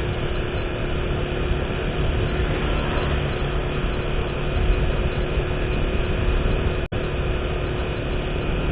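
Steady running noise of a moving road vehicle: engine and tyre noise with a steady hum, cutting out for an instant about seven seconds in.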